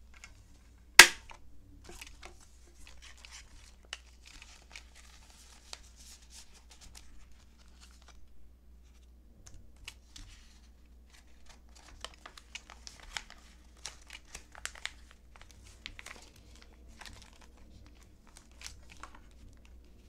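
Three-ring binder's metal rings snapping shut with one loud, sharp click about a second in. Then clear plastic card-sleeve pages crinkle and rustle as business cards are slid into their pockets, with light ticks and scrapes.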